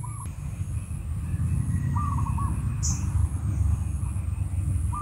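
A bird calling a short phrase of three or four quick notes, repeated about every two to three seconds, over a steady low rumble.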